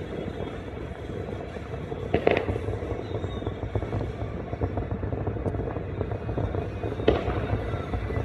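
Distant fireworks: two sharp, muffled bangs, about two seconds in and about seven seconds in, over a steady low background.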